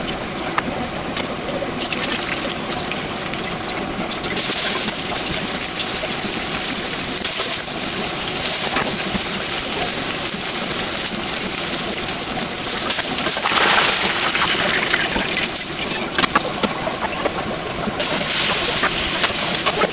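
Hot oil sizzling and bubbling: food deep-frying in a pot of oil and green peppers and sliced pork frying in a pan. The sizzle grows louder and brighter about four seconds in and again near the end.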